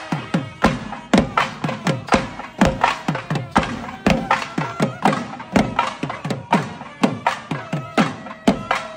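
Traditional South Indian festival barrel drums beaten by a group in a fast, driving rhythm, several strokes a second. Many strokes have a low boom whose pitch drops quickly after each hit.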